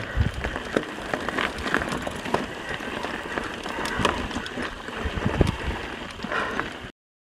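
Mountain bike rolling along a dirt trail: a steady crunching crackle of tyres on loose gravel and dirt, with many small irregular clicks and rattles.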